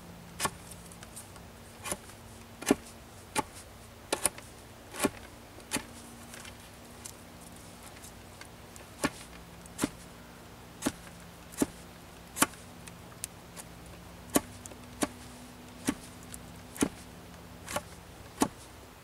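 Knife whittling the end of a peeled wooden stick: a short, crisp slicing snap with each cut, about one a second, with a lull of a few seconds about a third of the way through.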